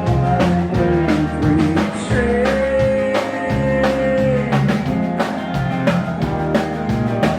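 Live country band playing: drum kit keeping a steady beat under the instruments, with one long held note from about two seconds in to past the middle.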